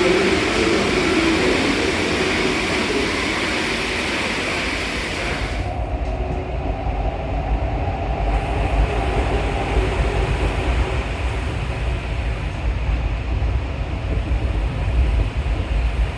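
Rubber-tyred MP14 metro train running through the tunnel, heard from inside, with a low rumble. About six seconds in, the high rushing noise drops away suddenly and a faint motor whine falls in pitch as the train slows for the next station.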